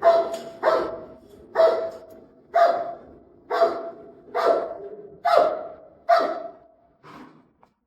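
Dog barking in a steady series, about one bark a second, nine barks with the last one fainter. It is squaring up to another dog, ready to fight.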